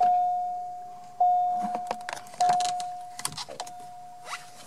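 Dashboard warning chime of a 2005 Chevrolet Cobalt sounding with the ignition switched on: one steady tone that strikes and fades, four times about every 1.2 seconds. Light clicks and knocks come between the chimes.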